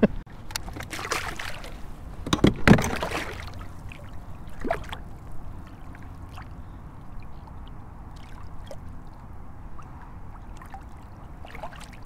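Large redfish being released over the side of a plastic kayak: a couple of louder splashes and knocks in the first three seconds as the fish goes into the water, then soft lapping and trickling water alongside the hull while it is held in the water.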